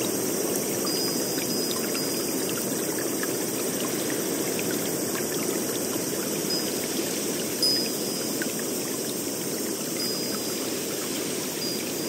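Steady rush of running water, like a stream, with small drips and faint high tinkling tones here and there.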